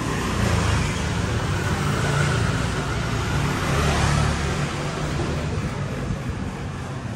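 Motor scooter engine approaching and passing close by, loudest a few seconds in, then fading, over steady street noise.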